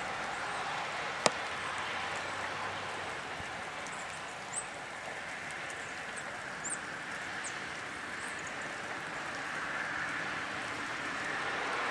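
Steady hiss of falling rain, with one sharp click a little over a second in and a few faint, short, high chirps from small birds in the middle.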